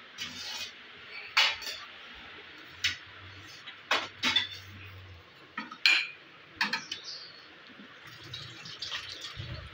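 Stainless steel plate clinking and knocking against the metal grill rack inside a microwave oven as it is slid into place: a run of sharp, irregular clinks.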